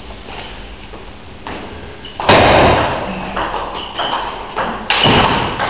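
Table tennis rally: the ball clicking off the bats and the table in a quick back-and-forth, about two hits a second. It opens with a loud knock about two seconds in.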